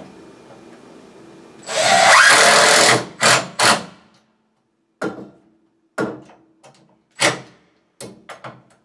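Cordless drill driving a screw into wooden framing: one run of about a second, then two short bursts, followed by several brief sharp knocks.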